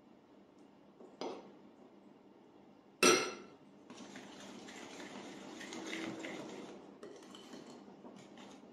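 A sharp clink of a metal spoon on ceramic about three seconds in, after a fainter knock. Then a wire hand whisk scrapes steadily around a ceramic bowl for about three seconds, stirring flour into an egg-and-oil batter, with a few light taps near the end.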